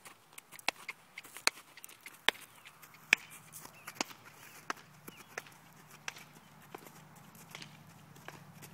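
Young filly's hooves walking on sandy footing under a rider: irregular sharp clicks, about one every three-quarters of a second. A faint steady low hum comes in about two and a half seconds in.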